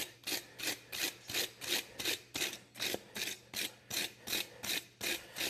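A brush scrubbing back and forth over a steel horseshoe in quick, even strokes, about four a second, cleaning the flux off the freshly brazed, water-dipped heel.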